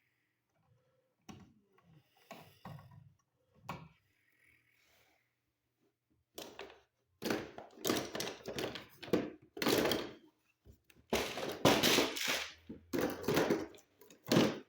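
Irregular knocks, scrapes and rattles of wires and tools being handled in an electrical junction box. They are faint and sparse at first and loud and busy from about six seconds in.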